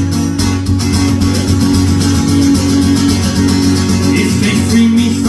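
Acoustic guitar played solo, picking bass notes and strumming chords in a steady rhythm.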